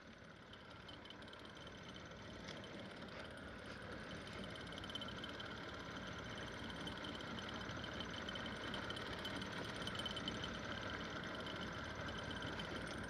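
Steady motor hum with a faint whine, fading in at the start and slowly growing louder.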